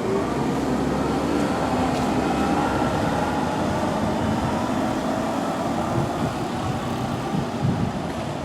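Steady noise of a vehicle running, with faint tones that waver slightly in pitch.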